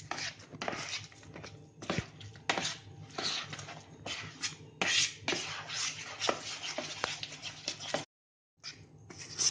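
Steel spoon stirring thick, wet semolina-and-curd batter in a plastic bowl: irregular scraping strokes, the spoon knocking the bowl's side now and then. The sound breaks off to silence for half a second near the end.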